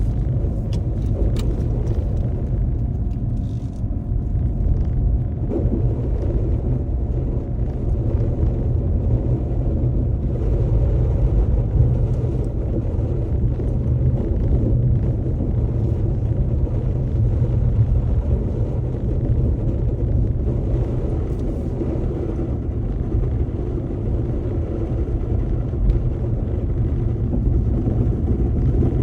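Car being driven on a snowy road: a steady low rumble of engine and tyres.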